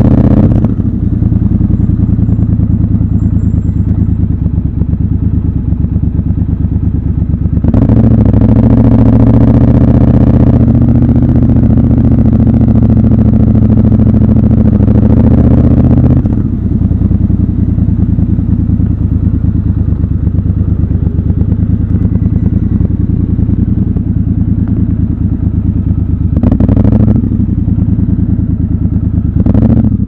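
Triumph Scrambler 1200 XC's 1200 cc parallel-twin engine running at low road speed, recorded raw from the bike. The engine note steps up louder under throttle for about three seconds from around eight seconds in and again briefly near the end, and is otherwise steady and lighter.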